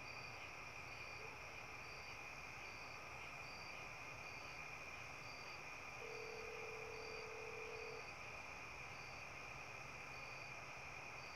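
Faint night chorus of crickets: a steady high trill, with a second, higher insect call pulsing a little more than once a second. Midway, a steady low tone sounds for about two seconds.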